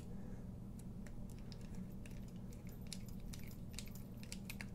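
Faint, irregular small clicks and ticks as a bit driver turns the pivot screw back into a folding knife.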